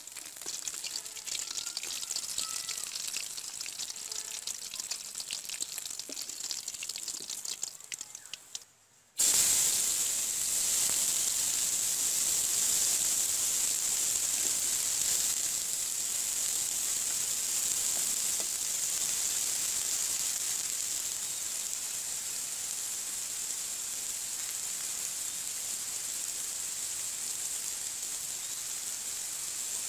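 Cooking oil sizzling in a large aluminium karai: first fish pieces frying with a crackly hiss and small pops. After a short break about nine seconds in, chopped onion and garlic fry in hot oil with a louder, steady sizzle.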